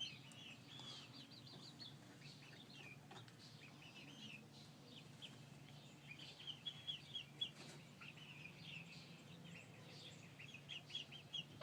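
Young chickens peeping: a string of short high chirps, busier in the second half, over a faint steady low hum.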